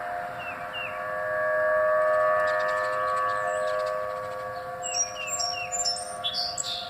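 A steady drone sounding several pitches at once, swelling about two seconds in and holding on. Birds chirp over it, with a cluster of quick high chirps near the end.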